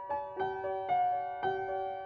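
Background music: a gentle piano melody, notes struck every quarter to half second and left to ring.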